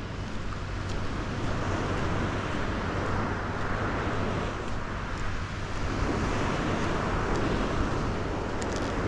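Sea surf washing on the shore, a steady rushing noise that swells and eases every few seconds, over a low steady rumble.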